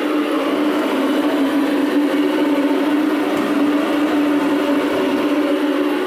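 Kohler Wellworth toilet tank refilling through its float-ball ballcock fill valve: water rushing with a steady, unchanging hum.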